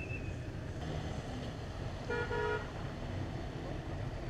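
A vehicle horn gives two short toots about two seconds in, over a steady low rumble of road traffic.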